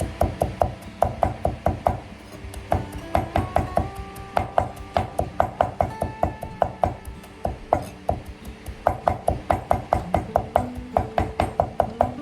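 Rapid, steady knocks, about four to five a second, over background music with a shifting melody.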